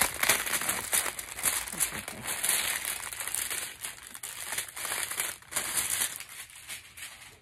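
Clear plastic wrapping crinkling and rustling as it is handled and pulled off a photo book. The sound is a busy run of crackles that dies away near the end.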